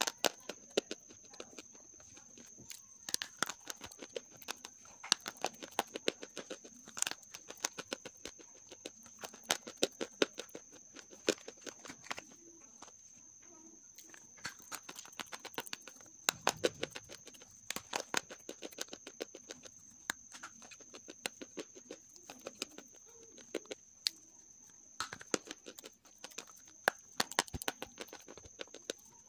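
Half-roasted grey clay being crushed and crumbled in the fingers: a long, irregular run of sharp crunches and dry crackles.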